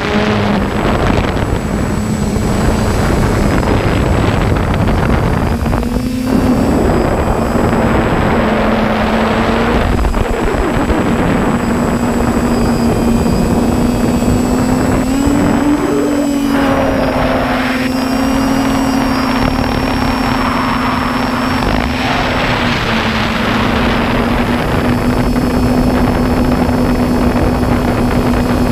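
Multirotor camera drone's motors and propellers buzzing steadily, heard close from the aircraft itself, the pitch shifting up and down a little as it manoeuvres and climbs.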